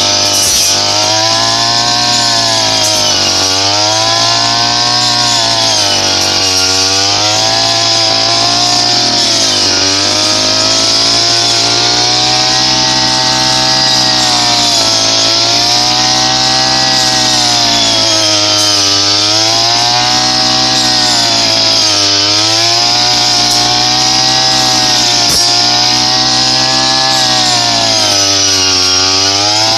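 Brush cutter engine running loud and fast while cutting rice stalks, its pitch sagging and recovering about every two to three seconds as the blade takes load.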